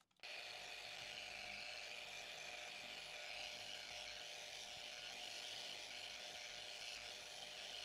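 Small electric polishing tool whirring steadily while buffing finishing paste or carnauba wax on an epoxy-and-wood board; the sound starts and stops abruptly.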